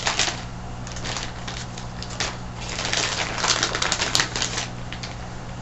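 Clicking and crinkling of packaging as a wireless mouse is taken out, coming in bursts, with the busiest run of clicks about three to four and a half seconds in. A steady low electrical hum lies underneath.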